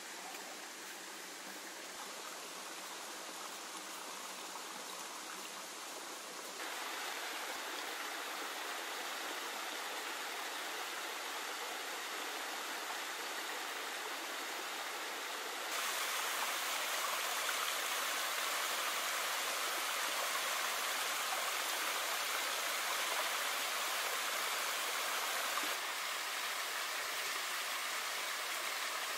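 Small woodland waterfall splashing over rock ledges into a pool, a steady rush of water. It grows abruptly louder about a quarter of the way in and again about halfway, then drops back a little near the end.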